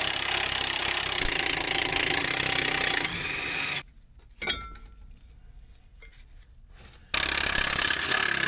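Cordless impact wrench hammering on a stubborn bolt for about three seconds, then spinning freely for a moment before it stops. A sharp metallic clink follows in the quiet, and a loud steady mechanical rattle starts again about seven seconds in.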